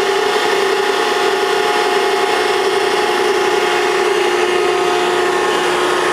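Maren Model 72 baler's hydraulic power unit, its 15 hp electric motor driving the pump, running steadily under load as the ram strokes through an automatic cycle: a constant whine with a few steady tones.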